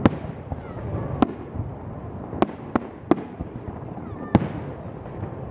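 Fireworks display: six sharp bangs of shells bursting at irregular intervals, the loudest right at the start and about four seconds in, over a steady rumble from the display.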